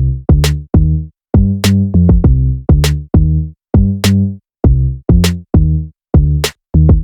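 Background electronic music with a steady drum-machine beat and a deep pitched bass line.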